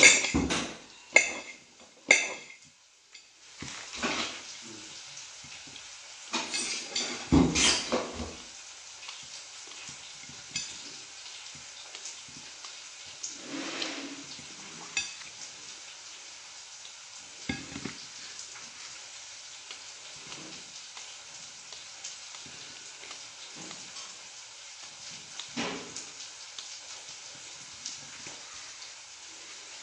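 A knife clicking and knocking against a plate as frankfurters are cut into pieces, loudest in the first two seconds and around seven to eight seconds in, over a steady sizzle of frying.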